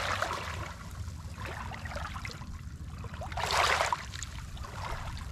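Water sloshing and washing, with a louder wash about three and a half seconds in.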